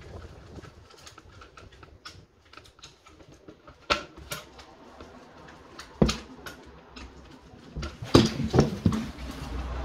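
Small clicks and taps from work on a wall socket: the faceplate, the screwdriver and the wires being handled. There is a sharper knock about four seconds in, another at six, and a cluster of louder knocks near the end.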